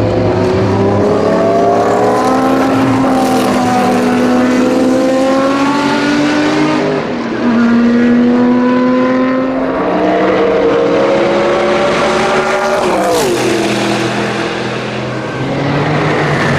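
Group C prototype race cars at full throttle, among them the Mercedes-Benz Sauber C11's twin-turbocharged V8. The engine note climbs through the gears and drops back at each of several upshifts. About thirteen seconds in, the pitch falls steeply as a car passes close.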